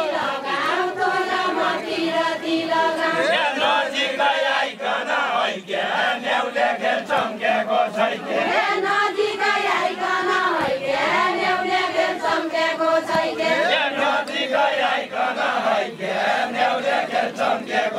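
A group of voices chanting a Deuda folk song together in unison.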